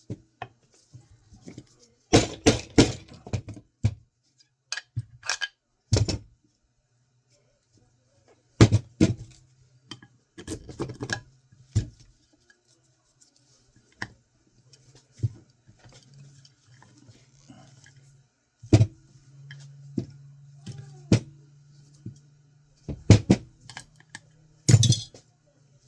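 Small metal and plastic hard-drive parts and tools being handled and set down on a work surface: irregular clicks, clinks and knocks in scattered bursts.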